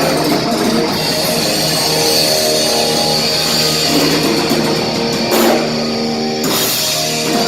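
Rock band playing live, electric guitar and drum kit, with held chords ringing and cymbal crashes about five and six and a half seconds in.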